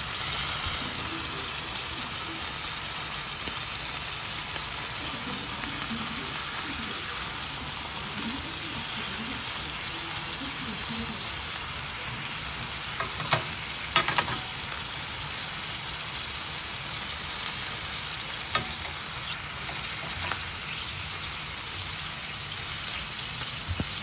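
Bone-in steak sizzling steadily in butter in a stainless steel frying pan, with a few sharp metallic clicks a little past halfway as tongs touch the pan.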